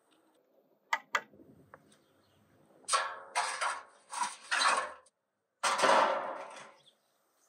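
A metal grill grate and a large round steel barrel lid being handled. There are two sharp clicks about a second in, then a run of loud metal scrapes and clanks, and a final longer scrape near the end.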